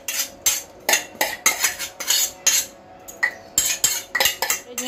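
A metal spoon clinking and scraping against a stainless steel cup, about three sharp clinks a second with short pauses, as coarsely chopped green chillies are knocked out of the cup.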